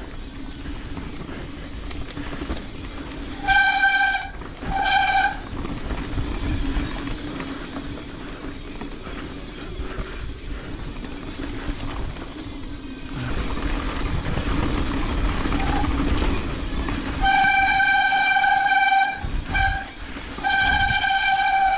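Train horn, one pitched tone, sounding two blasts a few seconds in, then a long blast, a short one and another long one near the end. A low steady hum and rumble runs underneath.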